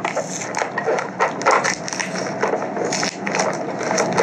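Plastic courier packaging crinkling and rustling in the hands, with many irregular crackles and clicks as it is handled and pulled at to open it.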